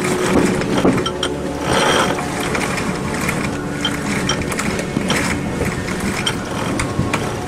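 Sailboat sheet winch ratcheting, with irregular rapid clicks, as the genoa sheet is hauled in and the sail unrolls from its furler.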